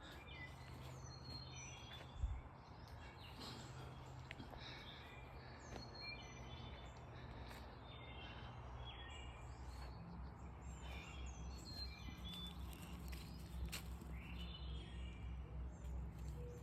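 Several songbirds chirping and calling over a steady low background rumble, with one short knock about two seconds in.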